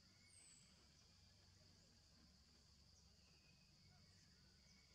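Faint, steady high-pitched drone of insects, with a few short, high falling chirps over it.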